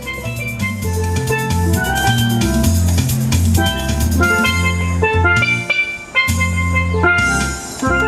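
Upbeat music: short ringing melodic notes over a bass line and a drum kit, with a brief drop in level about six seconds in.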